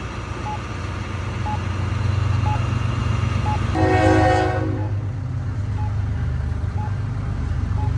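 Campbell audible pedestrian push-button sounding its locator tone, a short beep about once a second, over a steady low traffic hum. About four seconds in, a horn sounds once for under a second, the loudest thing here.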